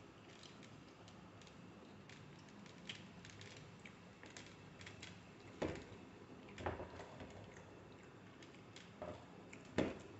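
Fingers tearing parotta and picking at beef fry on a steel plate: small scattered ticks and soft squishing, with a few sharper knocks of hand or food against the plate, the loudest near the end.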